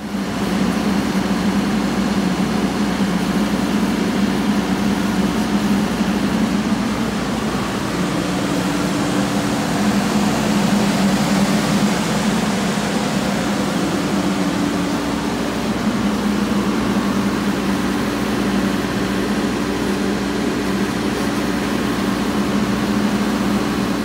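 The diesel engine of a 2015 Caterpillar 420F backhoe loader running steadily, an even, unchanging engine drone.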